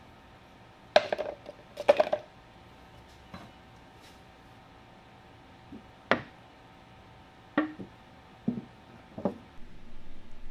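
Small metal hand-plane parts clattering into a plastic cup and knocking on the wooden workbench: two loud clatters in the first couple of seconds, then scattered lighter knocks. Near the end a rough, steady rushing noise starts as the cup is filled.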